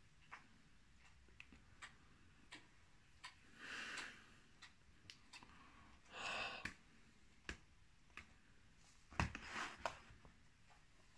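Three soft breathy sighs, a couple of seconds apart, from a man with his hand over his face, over faint scattered ticks; a sharper knock comes just before the last sigh.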